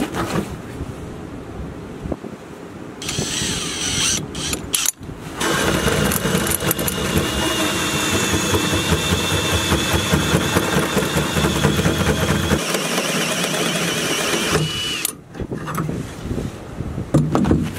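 Cordless drill driving a large hole saw through the steel floor of a pickup bed. It starts in short bursts, then cuts steadily with a high whine for about ten seconds and stops about fifteen seconds in, once the saw has cut through.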